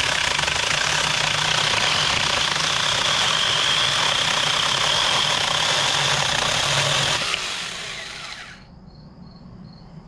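Saker 4-inch, 20-volt battery mini chainsaw cutting through a branch about 1.5 inches thick, running at a steady pitch for about seven seconds. It then winds down as the cut finishes and the trigger is released.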